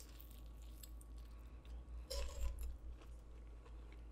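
Chewing a bite of Hot Cheeto-crusted fried food: faint crunching and wet mouth sounds, with a louder crunchy spell about two seconds in.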